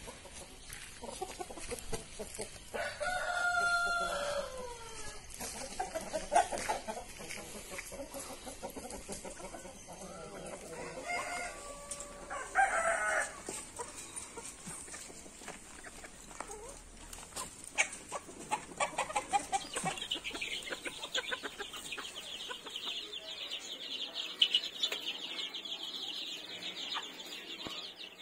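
Chickens: a rooster crows about three seconds in and again about twelve seconds in, with hens clucking. From about twenty seconds in, a dense run of high chick peeping.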